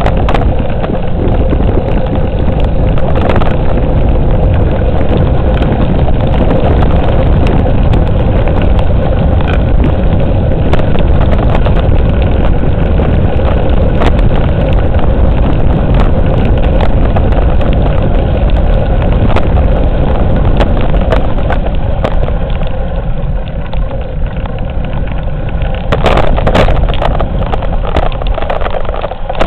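Heavy wind buffeting on the microphone of a camera mounted on a moving bicycle, with tyre rumble on a rough forest road and a few sharp knocks. It eases a little just before a louder gust near the end.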